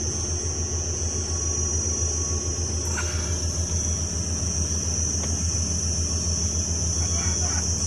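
Heavy-machinery diesel engine running steadily with a low, pulsing rumble, and a steady high-pitched hiss above it.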